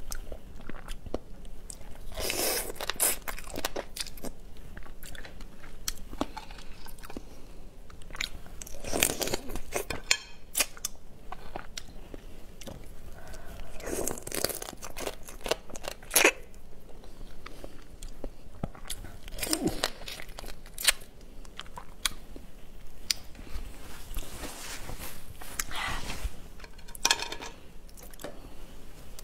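Crab shell crunching and cracking between teeth while the meat is eaten, with chewing in between. The crunches come every few seconds, with a few sharper cracks.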